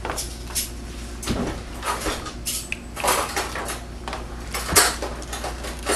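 Hard plastic parts of a SeaClone 100 protein skimmer being handled and fitted together: irregular clicks, knocks and rattles, with a sharper knock near the end.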